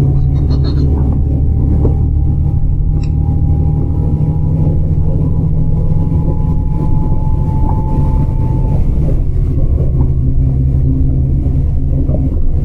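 Steady low rumble inside an intercity coach bus as its engine runs, with a faint thin whine that slowly rises and cuts off about nine seconds in.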